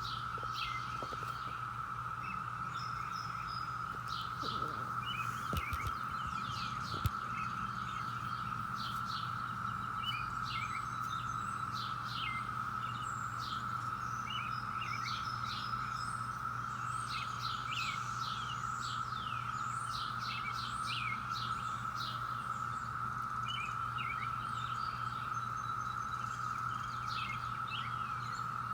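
Chorus of Brood X periodical cicadas droning steadily at one high pitch, with songbirds chirping over it throughout and a low steady hum beneath.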